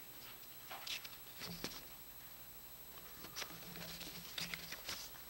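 Scattered paper rustling and small desk clicks in a quiet room, a few brief rustles spread through a lull, the busiest stretch near the end.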